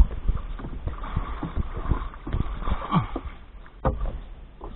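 Irregular knocks and thumps on a small wooden fishing boat while a handline is worked, with a sharper knock near the end.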